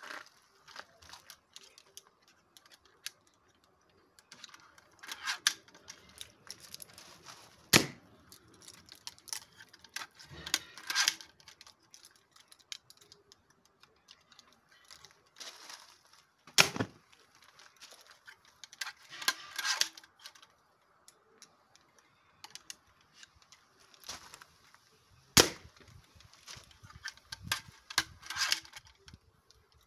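A pistol crossbow shot three times, about eight or nine seconds apart, each a single sharp crack as the string lets go and the broadhead bolt strikes a laptop. Between the shots come bursts of clicking and rattling as the crossbow is cocked and a new bolt is loaded.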